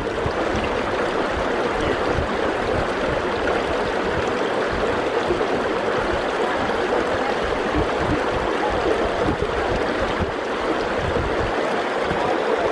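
Shallow, rock-strewn fell stream flowing steadily over stones.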